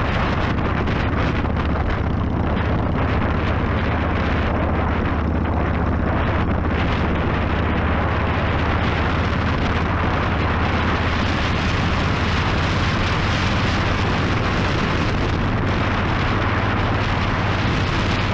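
Motorcycle riding at a steady cruise: a constant low engine drone under heavy wind rush on the camera microphone.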